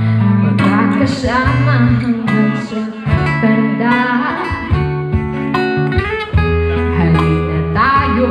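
Live band music led by guitar, with a woman singing into a microphone over steady low bass notes.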